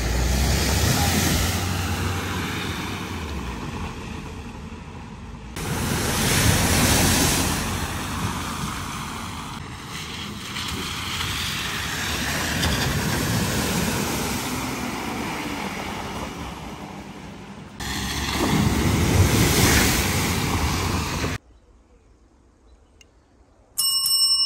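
Cars driving through a flooded ford, water splashing off their wheels over engine noise, in several short clips that cut abruptly from one to the next. Near the end, after a brief quiet, a single bright bell-like ding rings out.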